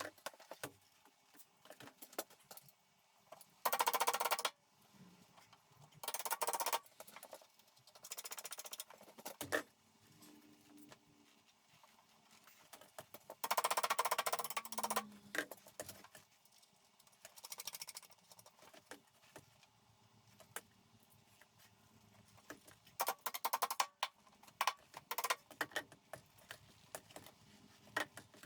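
Intermittent construction work on a metal ceiling framework: scattered knocks and clicks, with a few rasping bursts lasting up to about a second and a half, the loudest around four seconds in and again around fourteen seconds in.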